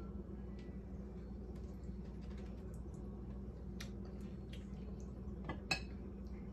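Avocado mash being spooned onto a taco: soft squishes and light utensil clicks, with one sharper click near the end, over a steady low hum.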